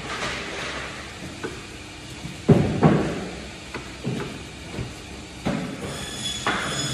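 Dull knocks and scrapes of a boning knife and a raw lamb shoulder being worked on a plastic cutting board during deboning. The two loudest knocks come close together about two and a half seconds in. A steady mechanical hum runs underneath.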